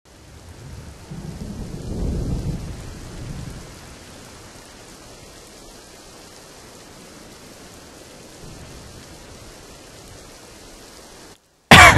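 Rain with a low rumble of thunder that swells and fades in the first few seconds, then a steady hiss of rain that cuts off suddenly near the end.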